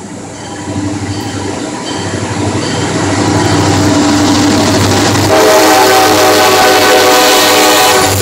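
CSX diesel freight locomotives approaching and passing close by, the engine rumble growing louder. About five seconds in the locomotive horn sounds a steady multi-note chord and holds it.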